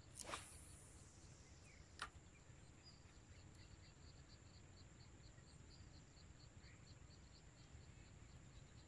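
A quick whoosh of a fishing rod being swung in a cast about a quarter second in, then a single sharp click about two seconds in. After that, faint insects chirp in a rapid, even pulse.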